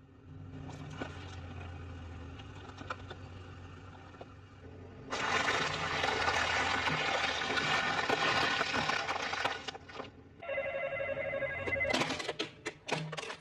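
A car's metal body being crushed by a machine: crunching and grinding that turns much louder about five seconds in and stays loud for about five seconds. Near the end come a ringing metallic tone of about a second and a half and then a quick run of sharp cracks.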